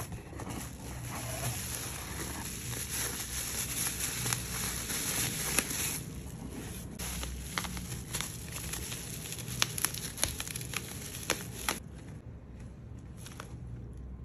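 Plastic bubble wrap crinkling and crackling as it is handled and pulled off a box, dense at first, then a string of sharp crackles, and quieter near the end.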